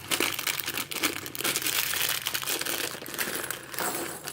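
Plastic Lego parts bag crinkling as it is handled and opened: a dense, continuous run of crackles.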